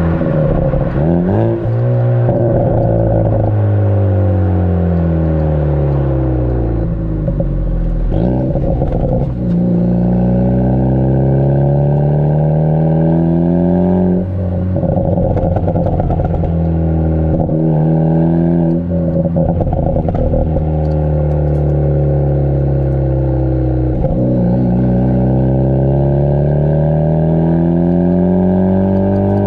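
Ford Focus ST's turbocharged four-cylinder through a Borla catback exhaust, heard right at the tailpipe, pulling up through the gears: the note rises steadily for several seconds, then breaks and drops at each shift, about six times. Quick crackles pop through the exhaust around several of the shifts, from a pops-and-crackles tune.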